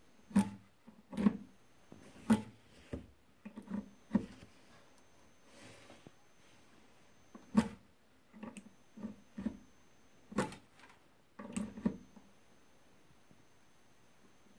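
Faulty 110 V ceramic-plate ozone generator's high-voltage driver giving off a very high-pitched whine that cuts out and comes back about five times, with sharp crackling snaps as it stops and restarts: the unit working only intermittently.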